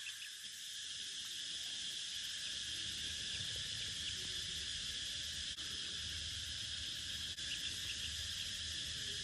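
Steady high-pitched insect chorus.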